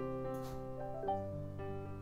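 Soft background music: held notes that change a few times, with no speech over them.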